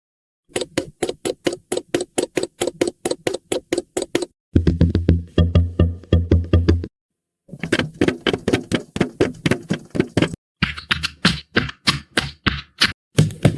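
AI-generated cartoon-style running sound effect: quick, even footstep-like taps, about six a second, played as several short takes back to back with brief gaps between them. One take has a heavy low thump under each step.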